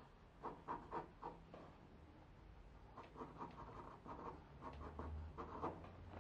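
Pencil scratching across drawing paper in short, quick strokes, faint: a handful of strokes in the first second or two, then a longer run of strokes from about three seconds in.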